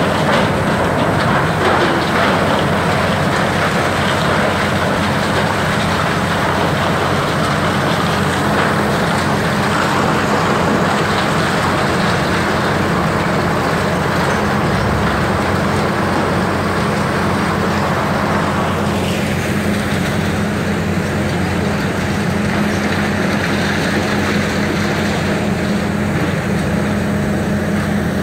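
Heavy diesel engines of tracked demolition excavators running steadily with a constant low hum, under a dense noisy hiss that drops away about two-thirds of the way through.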